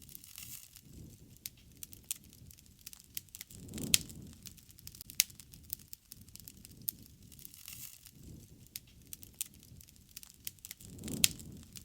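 Wood fire crackling, with many sharp pops and snaps. Two low rushing swells come about four seconds in and near the end, each carrying the loudest pop.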